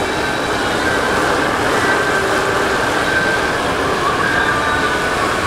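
Whole steamed chickens deep-frying in a wide karahi of hot oil: a loud, steady sizzle.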